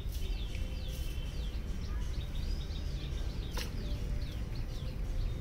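Small birds chirping, many short falling calls in quick succession, over a steady low rumble of outdoor background noise. One sharp click about three and a half seconds in.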